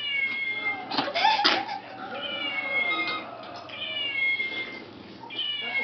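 Stuffed toy kitten's recorded meow playing over and over, about four meows, each a short, slightly falling call. A louder short sharp burst cuts in about a second in.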